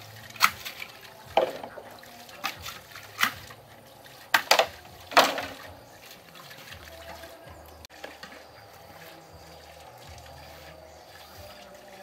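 Water splashing: about seven sharp splashes in the first five seconds, then a quieter steady sound.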